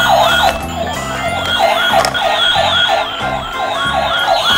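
Toy police car's electronic siren sounding a fast, evenly repeating yelp, over background music.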